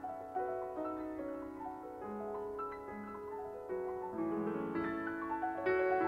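Piano music: a slow melody of held notes, getting a little louder in the second half.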